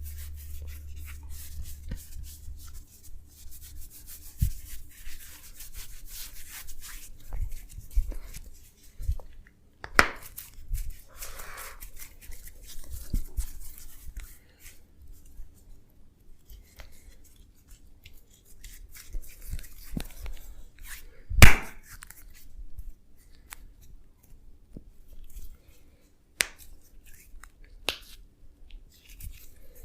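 Hands massaging, scratching and rubbing at hair and skin with a dry, crackly rustle. Scattered sharp cracks and snaps come through it, the loudest about two-thirds of the way in.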